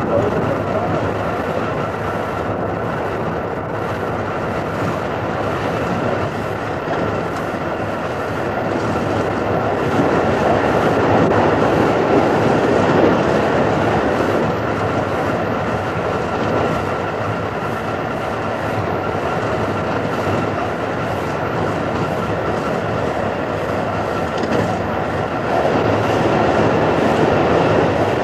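Sydney wooden-bodied Bradfield electric motor car running along the track: a continuous rumbling train noise with a thin steady tone through it, swelling louder for a few seconds in the middle and again near the end.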